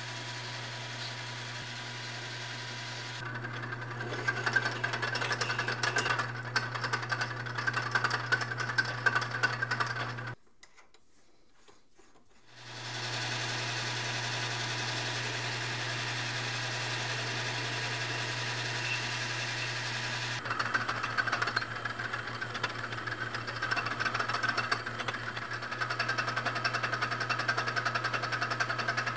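Metal lathe running with a steady motor hum while the cutting tool turns and threads a small metal part, a rough cutting rasp coming and going over the hum. The sound drops out for about two seconds near the middle, then the lathe runs again and the cutting rasp returns for the last third.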